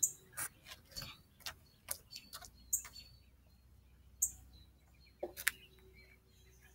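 Irregular sharp taps and knocks, about two a second at first and sparser later, with a few short high bird chirps.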